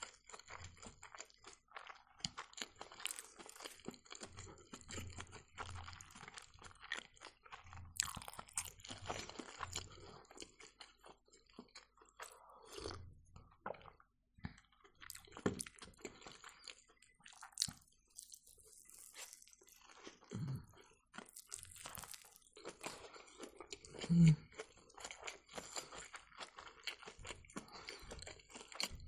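Close-miked chewing and crunching of a rolled rice pancake with trout, pear and crisp lettuce, with small wet mouth clicks throughout. A louder low thump comes about three-quarters of the way through.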